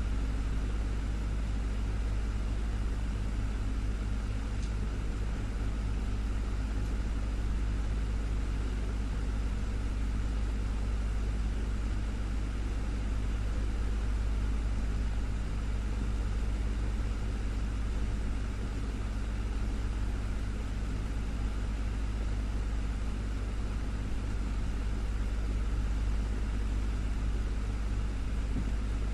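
Desktop fan running steadily: a constant low motor hum under an even whoosh of moving air.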